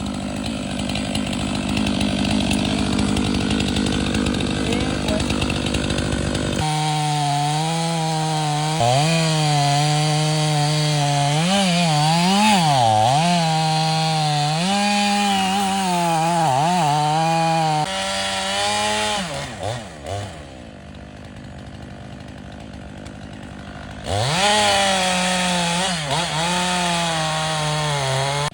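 Stihl 500i chainsaw cutting into oak at full throttle, its pitch dipping and recovering as the chain bogs under load. The saw drops off about two-thirds of the way through, then revs back up and cuts again.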